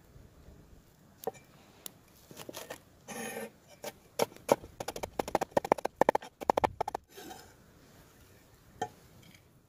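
Cleaver chopping green onions on a wooden cutting board. A few separate knocks come first, then a quick run of chops, about five a second, for some three seconds in the middle.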